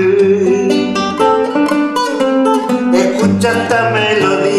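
Nylon-string classical guitar played fingerstyle, plucking single notes and chords in a steady run of a folk song.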